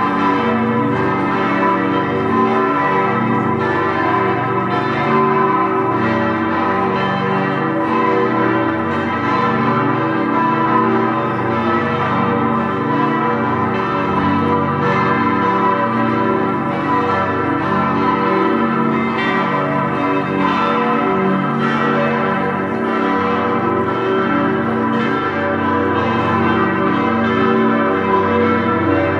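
Plenum of six large bronze church bells ringing together, keys G, A, B, D, E and G, the largest 212 cm across and about 5.8 tonnes, all cast by Grassmayr. Their strikes overlap continuously into a dense, steady, unbroken clang.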